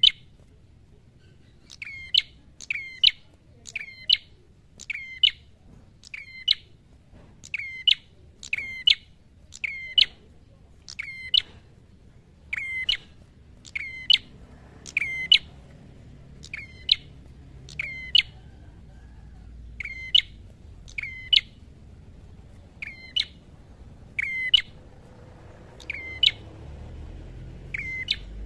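Tailorbird calling: a long series of loud, sharp, high single notes, roughly one a second, with a few short pauses.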